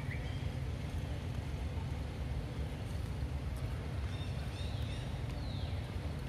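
Steady low wind rumble on the microphone. A few faint high chirping calls come about four seconds in, and one call slides down in pitch near the end.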